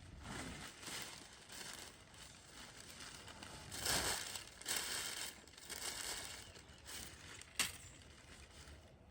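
Packing paper being crumpled and handled in irregular rustling bursts, with one sharp click about three-quarters of the way through.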